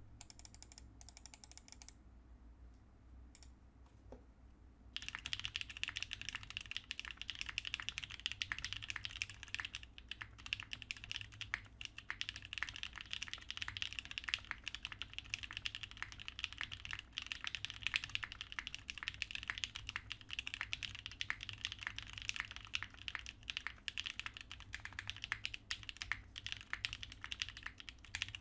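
Continuous fast typing on a TGR 910 mechanical keyboard with lubed vintage Kailh Cream switches, a polycarbonate plate and GMK keycaps. A couple of faint single clicks come first, then a dense, unbroken run of keystrokes starts about five seconds in.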